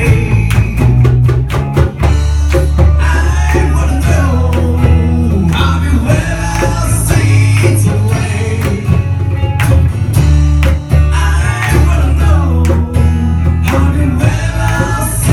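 Live band playing a rock song with guitar, bass, tabla and cajon, with a voice singing over them.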